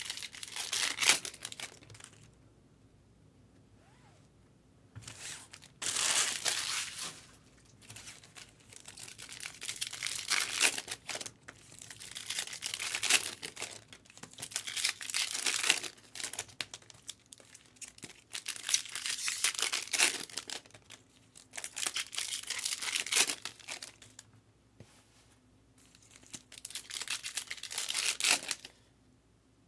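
Foil wrappers of Topps Cosmic Chrome baseball card packs being torn open and crinkled by hand. The sound comes in about eight rustling bursts of a second or two, with short quiet gaps between them.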